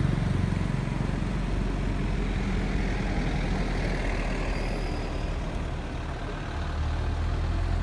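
Motor vehicle engine running steadily, a low rumbling hum whose pitch shifts slightly about two-thirds of the way through.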